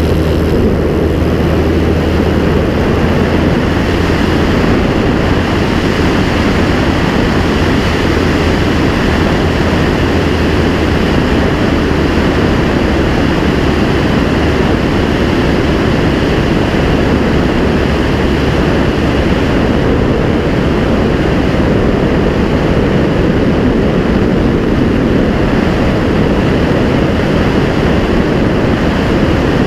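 A clipped wing Cub's Continental C-90 four-cylinder air-cooled engine and propeller running steadily in flight, under a loud, even rush of wind over the outside-mounted camera.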